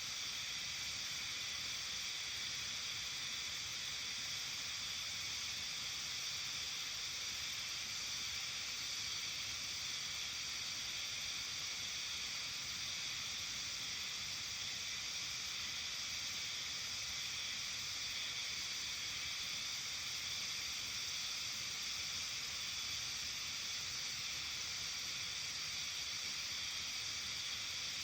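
Steady outdoor evening ambience of a mountain village: a continuous high-pitched hiss that never changes, with no distinct calls or events standing out.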